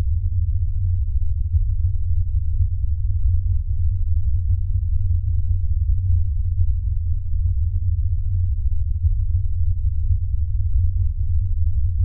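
Wind sound effect: a loud, steady, deep rumble of wind with nothing higher in pitch, no hiss or whistle.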